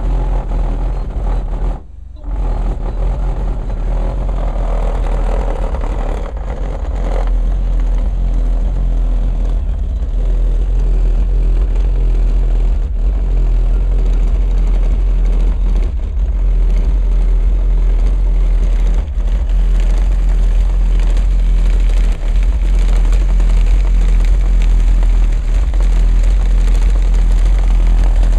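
Car audio subwoofers playing very loud, deep bass, a heavy sustained low rumble that dips briefly about two seconds in.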